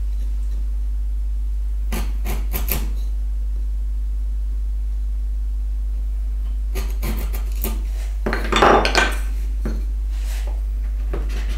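Steel bench chisel paring wood by hand in a notch: a few short scraping clicks, then a louder cluster of knocks and scrapes about eight seconds in. A steady low hum lies under it all.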